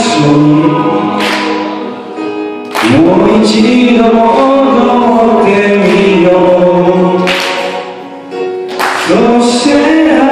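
Several men's voices singing together into microphones, holding long notes in phrases with two short breaks between them.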